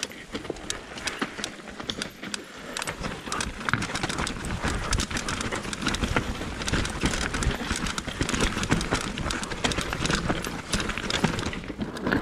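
Mountain bike rattling and knocking over a rough downhill trail, tyres hammering on roots and stones, getting louder about four seconds in.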